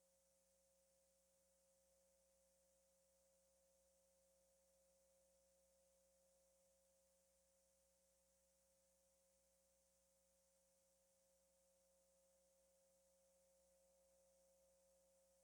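Near silence, with only a faint steady tone.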